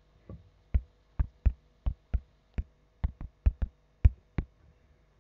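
Fingertip taps on a tablet's touchscreen while typing on the on-screen keyboard: about a dozen quick, irregular taps, each a short dull tick.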